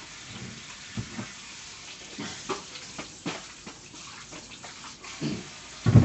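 Kitchen water sounds, boiling or running water, with scattered clinks of utensils and pots. A heavier knock comes near the end.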